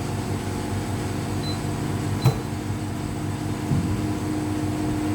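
Steady machine hum of a COF bonding machine at work during track-to-track bonding, with a sharp click a little over two seconds in and a softer knock near four seconds.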